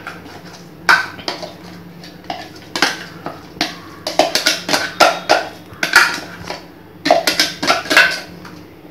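Stainless steel mixer-grinder jar being knocked and tapped to shake thick ground chana dal batter out into a bowl: sharp metal knocks and clanks in irregular clusters, densest from about four to six seconds in and again near the end.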